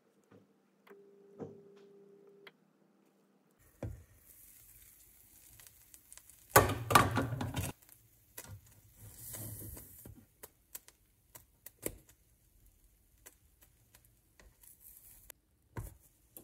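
Light clicks and knocks of objects being handled, with a louder clatter lasting about a second around seven seconds in, over a faint high hiss.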